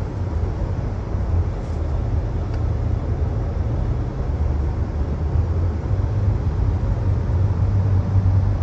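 Steady low road rumble inside a moving car's cabin as it drives through a road tunnel.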